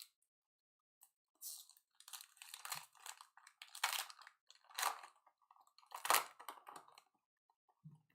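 Foil trading-card pack wrapper crinkling and tearing as a pack is ripped open, in several rustles that are loudest around the middle.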